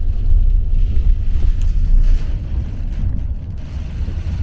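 Loud, steady low rumble of wind buffeting the microphone, easing slightly about halfway through.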